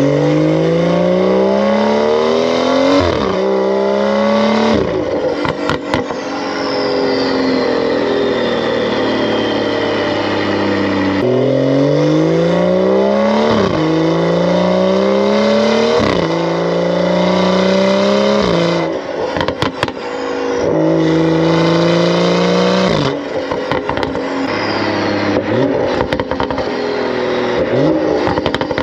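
BMW X3 M40i's turbocharged straight-six, breathing through a valved sport exhaust and free-flow downpipes, accelerating hard through the gears: the engine note climbs, drops at each upshift and climbs again, in two long pulls. Bursts of crackling follow each pull as the revs fall.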